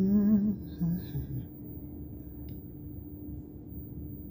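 A woman's brief wordless vocal sound, wavering in pitch, in the first second and a half, then only a steady low hum of the room.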